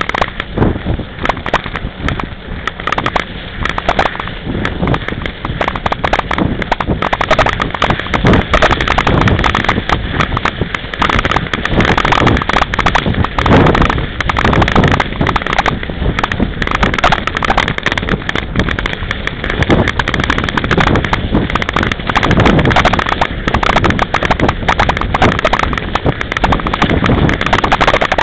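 Mountain bike ridden over a snow-covered track: a dense, irregular clatter of the bike jolting over bumps and its knobby tyre on the snow, with wind buffeting the microphone.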